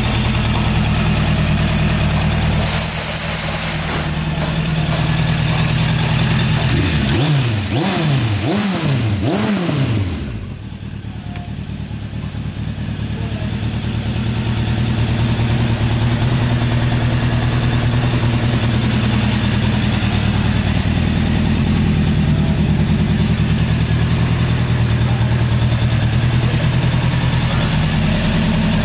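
Suzuki Bandit 1200's air/oil-cooled inline-four engine idling. About seven seconds in, the throttle is blipped about four times in quick succession, then the engine settles back to a steady idle.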